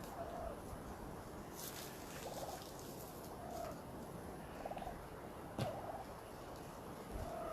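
Merriam's wild turkeys calling: short notes repeat every second or so, some with a brief rattling quality. A couple of faint clicks sound, about two seconds in and near the end.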